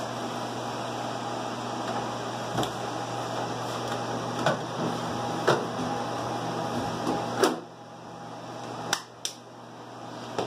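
Plastic-and-metal knocks and clunks of a UPS battery module being slid into its slot in an APC Symmetra PX cabinet, over the steady hum of the cabinet's cooling fans. A loud clunk about seven and a half seconds in, after which the hum drops, and two quick clicks near the end.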